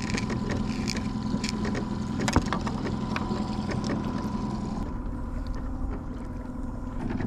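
Boat motor running steadily, with a sharp knock about two and a half seconds in; the motor sound eases a little about five seconds in.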